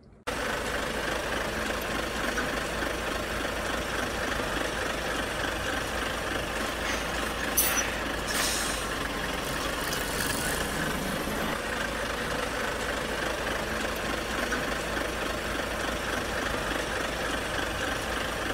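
Heavy truck running steadily, with a few short hisses of air near the middle, like air-brake releases.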